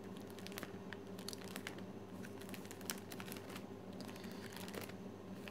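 Clear plastic album sleeves crinkling and rustling as they are handled and turned, with scattered small ticks, over a faint steady hum.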